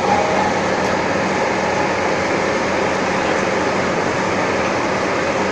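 Metal-turning lathe running steadily with a constant hum, spinning a steel shaft on which a bronze bushing is being lapped.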